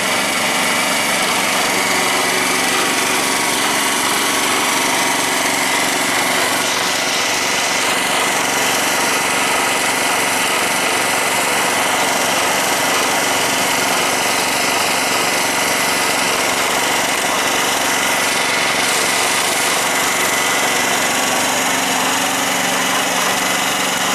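Yamaha EF2800i inverter generator's single-cylinder four-stroke engine running steadily at its lower economy-mode speed, a quiet even hum. Neither pitch nor level changes.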